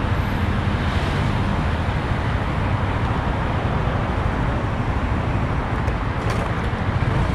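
Steady road traffic noise with a motor vehicle running close by, a continuous rumble.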